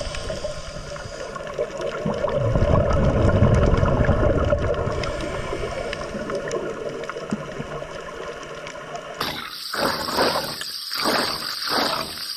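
Underwater sound picked up by a diving camera: a muffled, steady rush of water with bubbling from divers' exhaled air. In the last few seconds it breaks into separate bubbly bursts.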